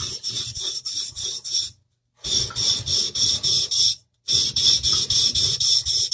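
Japanese knife's wide bevel (Aogami Super steel clad in soft iron) being ground flat on a wet 400-grit Naniwa Chosera water stone: a rapid, even rasping of stroke after stroke. It breaks off twice for a moment. This is the coarse-grit thinning stage of sharpening.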